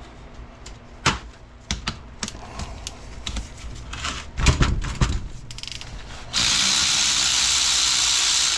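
Tools clinking and knocking on the transfer case as a socket is fitted to a detent bolt. About six seconds in, a power tool starts running steadily to spin out the 3/4-inch bolt over the shift-rail spring and ball detent, and it cuts off suddenly about two seconds later.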